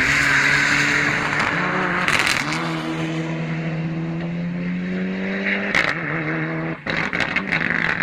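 Rallycross race car's engine running on the track, holding its revs with a slowly rising pitch, with a broad hiss loudest at the start and near the end.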